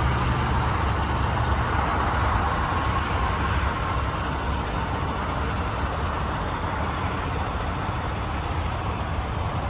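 Peterbilt 389's Cummins X15 diesel idling steadily: a deep, even rumble with a broad hiss above it, growing slightly fainter.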